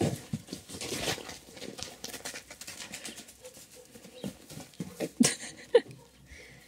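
Simmental calves running and frolicking over snow and trampled hay: irregular soft hoof thuds and patter. A short whine from a dog comes near the end.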